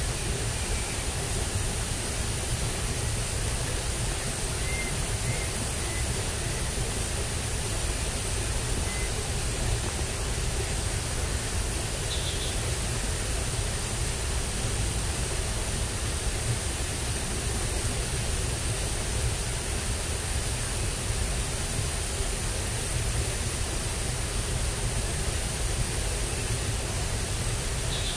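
Steady rushing outdoor noise that never changes, with a few faint, brief chirps.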